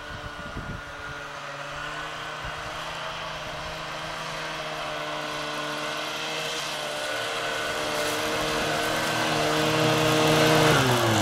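Engine of a small 1980s Ockelbo Poro snowmobile running at a steady pitch and growing louder as the machine comes closer. About ten and a half seconds in, the pitch drops as the throttle is eased off.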